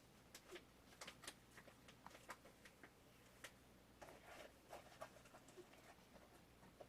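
Near silence in a small room: a low steady hum with faint, scattered light clicks and rustles, a little busier about four seconds in.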